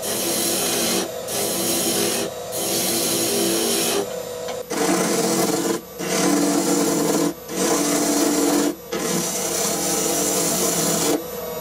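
Wood lathe spinning an ash blank while a turning gouge cuts its face: a rough, hissing cut in about eight passes, each broken by a short gap as the tool is lifted, over the lathe's steady hum. The cutting stops near the end and the lathe runs on.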